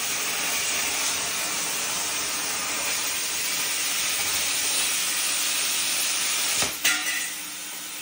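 Plasma cutter torch on a homemade CNC table cutting metal: a steady, loud hiss of the arc and air that stops abruptly with a click about six and a half seconds in, when the cut finishes.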